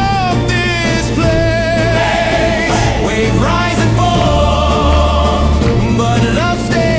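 Pop song with a woman's singing voice and a heavy bass beat, played loud over the speakers.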